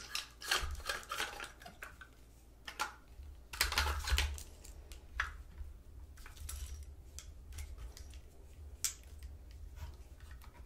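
Irregular clicks, snips and clatters as wires on a battery pack are cut with a hand cutting tool. The hard plastic vacuum housing and its rechargeable cells knock and rattle in the hands. There is a sharp snap right at the start, and a longer burst of clattering about four seconds in.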